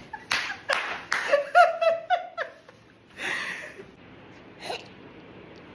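A person laughing in about six short breathy bursts, then a breath out about three seconds in.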